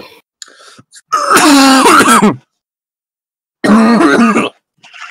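Two loud, wordless vocal outbursts from a person, each about a second long, the first wavering up and down in pitch, with a silent gap between them.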